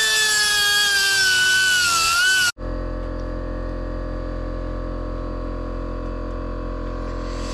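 Air-powered die grinder whining at high speed as it cuts through a stripped bolt, its pitch sagging slightly under load. It stops abruptly about two and a half seconds in, leaving a quieter steady mechanical hum.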